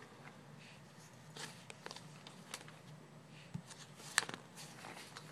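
Catalogue pages being handled and turned by hand: faint paper rustles and soft flicks, with one sharper click about four seconds in.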